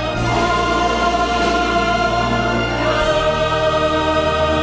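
Background music: a choir singing long held chords over instrumental backing, with a chord change about three seconds in.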